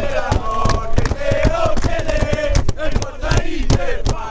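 A group of football ultras chanting together inside a coach, with sharp bangs on the ceiling and luggage racks keeping time.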